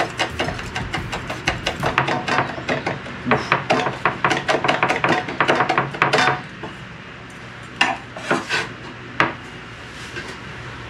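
A knife chopping small red Hawaiian chili peppers on a cutting board: a quick, even run of chops for about six seconds, then a few single knocks.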